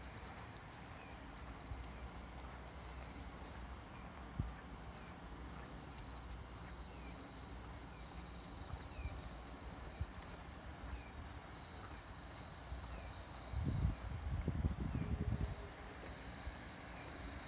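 Night insects chirping: a steady high trill with short falling chirps about once a second, over a faint low background hum. About two-thirds through, a couple of seconds of low rumbling noise cover the low end.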